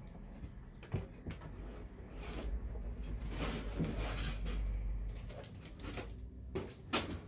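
Rustling and handling noise as signs are put down and another is picked up, with a few sharp knocks: one about a second in and another near the end.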